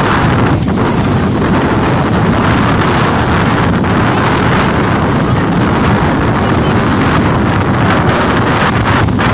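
Strong wind buffeting the microphone, a loud steady rushing with no clear pitch, over small waves lapping at the shore.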